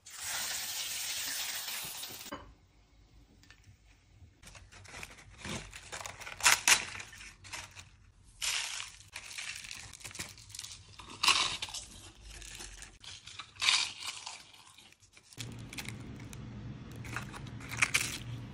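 Thin dried tofu skin sizzling as it goes into hot oil for about two seconds, then a run of sharp, irregular crackling crunches as the brittle fried tofu skin is broken and handled. A low steady hum takes over for the last few seconds.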